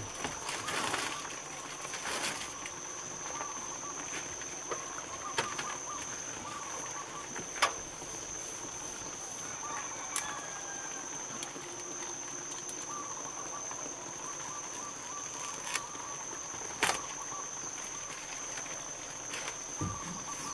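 Outdoor ambience: a steady high-pitched insect drone with repeated short chirps. A few sharp clicks come as adhesive flashing tape is pressed and smoothed onto plywood sheathing.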